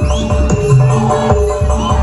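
Loud mberot music of the kind that accompanies a bantengan dance: a heavy drum beat about three times a second under steady held tones, with sliding high notes above.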